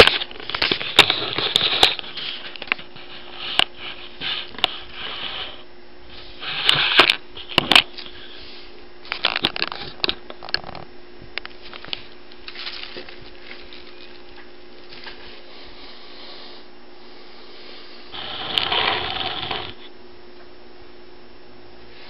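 Paper rustling and crinkling in irregular bursts with sharp clicks as a kitten tussles on the sheets with a person's hand; the bursts come thick at first, thin out, and a last longer rustle comes near the end. A faint steady hum lies underneath.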